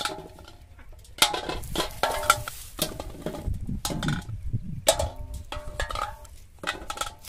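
Empty plastic bottles dropped and knocked into a large metal bowl, clattering against it several times, each knock setting the bowl ringing briefly.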